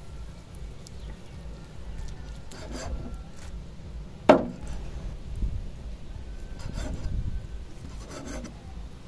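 Large knife slicing through soft boiled pork and scraping on a wooden chopping board, in short strokes, with one sharp knock about four seconds in.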